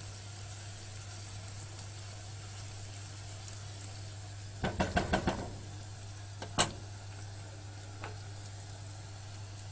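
Grated onion, beef fat and minced garlic frying in corn oil in a pot with a steady sizzle while a spatula stirs them. A quick run of spatula knocks against the pot comes about five seconds in, then one sharper knock a moment later.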